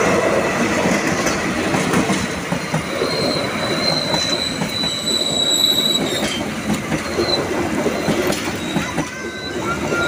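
KAI CC206 diesel-electric locomotive and its passenger coaches passing close by, wheels clattering over the rails in a loud, steady rumble. A high thin wheel squeal rings through the middle of the pass.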